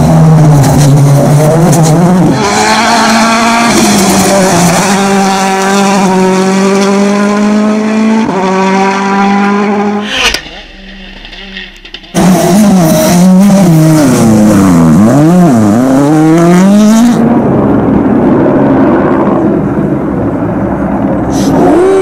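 Rally cars' engines at full effort. First a Ford Fiesta RS WRC's turbocharged 1.6-litre four-cylinder holds high revs with a couple of steps in pitch as it approaches. After a short drop about ten seconds in, another rally car's engine revs sharply up and down several times, then runs more steadily near the end.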